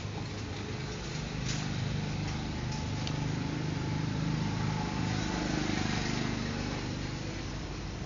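A steady low rumbling noise that swells through the middle and eases near the end, with a few faint budgerigar chirps in the first three seconds.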